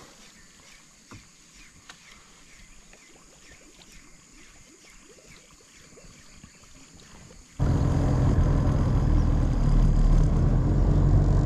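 Faint, quiet outdoor ambience with small ticks, then, suddenly about three-quarters of the way in, a boat engine running loud and steady with a low hum.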